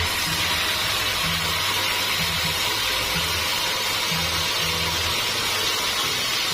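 Background music with a low bass line that changes notes every half second or so, over a steady hiss.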